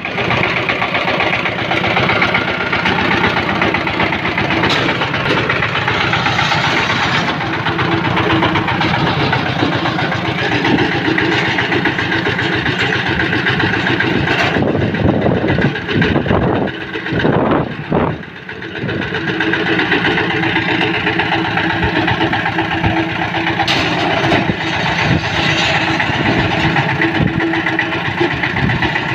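Single-cylinder diesel engine running steadily, driving the winch of a tipping concrete-bucket hoist on a trial run. The sound briefly wavers and drops about two-thirds of the way through.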